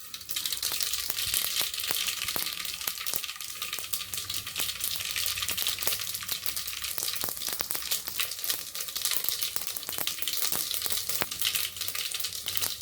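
Cumin seeds sizzling and crackling in hot oil, full of small pops. The sizzle starts suddenly as they go into the oil.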